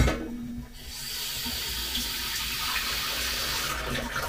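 Kitchen tap running into the sink with a steady hiss, turned on about a second in and off shortly before the end, after a brief knock at the start.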